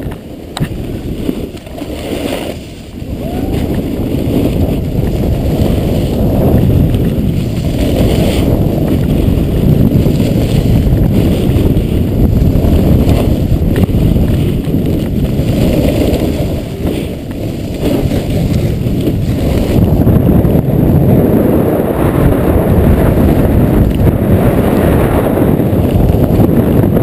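Wind rushing over a moving action camera's microphone during a downhill snowboard run, mixed with the scrape of the board sliding over packed snow. It grows louder a few seconds in as speed builds.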